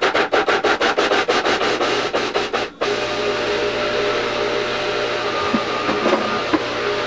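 Large food processor chopping a batch of whole chickpeas for hummus. For nearly three seconds there is a fast, even chopping rattle of about six strokes a second, then a brief stop. After that the motor runs steadily with a low hum as the chunky mixture is ground.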